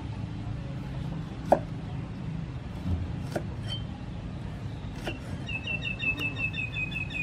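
A knife cutting limes on a wooden chopping board, giving a few sharp knocks, the loudest about a second and a half in. Near the end a bird calls with a fast run of short, high chirps, over a steady low background noise.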